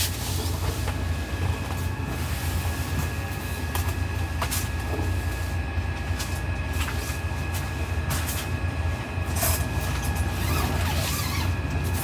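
Strong wind rumbling steadily against the car and its tent, heard from inside. A few light knocks and fabric rustles come as someone moves about on the bedding and tent floor.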